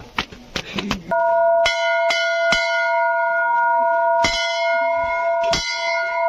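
Hanging brass temple bell rung by hand. Its clapper strikes about six times at uneven intervals, starting about a second in, and the tone rings on steadily between strikes.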